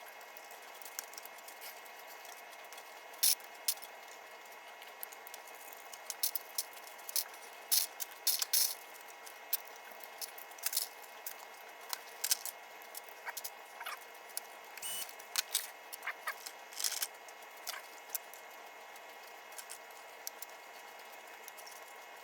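Sped-up workbench sound of pinball playfield parts being handled and fitted: scattered quick clicks, ticks and small clatters of hardware and tools, irregular in spacing, over a steady hiss.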